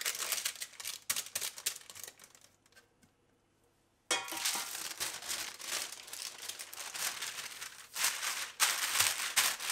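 Baking paper crinkling and rustling as a slab of oat-and-nut granola-bar dough is pressed out on it by hand. The crinkling fades out about two and a half seconds in, drops to near silence, then starts again abruptly about four seconds in.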